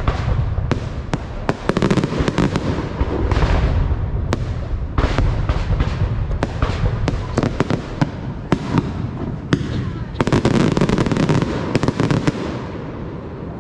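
Aerial fireworks display going off: rapid crackling and many sharp bangs over low rumbling booms, in dense barrages that thin out near the end.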